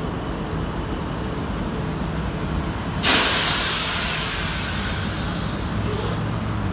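Passenger train rolling slowly alongside a platform with a low rumble. About three seconds in, a sudden loud hiss of released air starts and fades away over about three seconds as the train comes to a stop.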